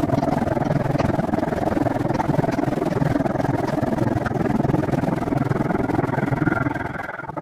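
Wind rushing over the microphone on a moving bicycle, with faint rattling clicks. The noise fades near the end and then cuts off abruptly.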